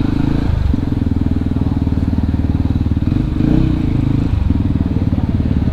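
Yamaha WR155R's single-cylinder engine running at low revs with an even, rapid pulse.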